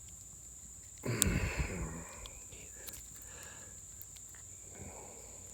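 A steady, high-pitched insect chorus drones without a break. About a second in, a brief, louder scuffling handling noise cuts across it.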